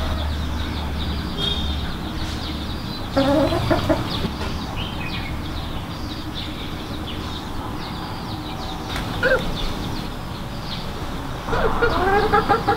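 Domestic hens clucking in short runs: a burst about three seconds in, a single short call about nine seconds in, and a longer run of clucks near the end.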